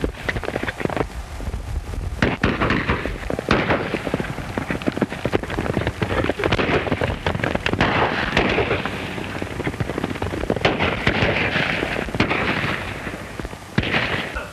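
Gunfight on horseback: many gunshots fired in quick, irregular succession, with galloping horses' hooves, under the hiss and crackle of an early sound-film soundtrack.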